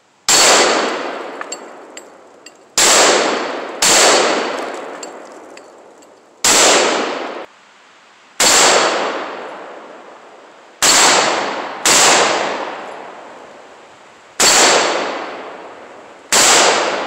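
Riley Defense RAK47C AK-47 rifle in 7.62×39 firing nine single shots at an uneven pace, each with a long echoing tail, the rifle cycling each round without a hitch.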